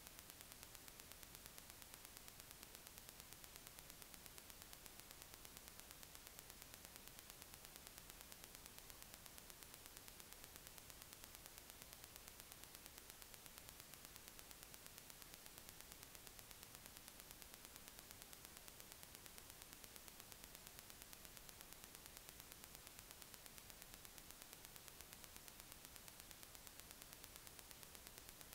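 Near silence: a faint, steady hiss of electronic noise, the recording's own noise floor.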